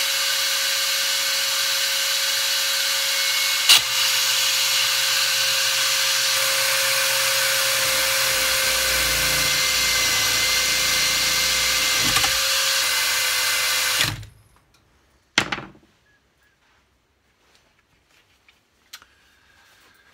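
Cordless drill, clamped in a vice with its trigger locked on, running steadily with a high whine as it spins a cloth polishing mop against an aluminium motorcycle engine case, with a lower rumble as the case is pressed on. The drill cuts off suddenly about fourteen seconds in, and a single knock follows.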